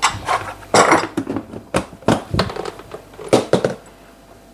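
Pots and utensils clattering in the kitchen: a string of sharp knocks and clinks, loudest about a second in and again near the end.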